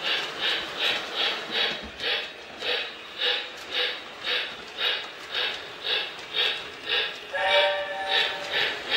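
Lionel Hogwarts Express O-gauge model steam locomotive running, its sound system playing a steady steam chuff at nearly three chuffs a second. A brief steam whistle blows about seven and a half seconds in.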